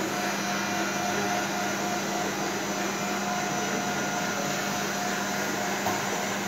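A motor or fan running steadily: an even whirring noise with a constant low hum.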